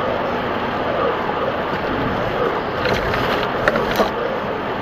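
Steady road and tyre noise heard from inside a car driving on a wet road in the rain, with a few short ticks near the end.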